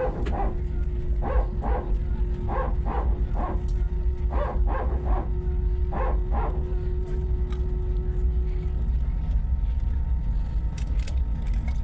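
Steady low rumble of an airliner cabin, the engines and airflow running, with a faint steady hum that fades out about nine seconds in. Several short, separate sounds stand out over the rumble during the first six seconds or so.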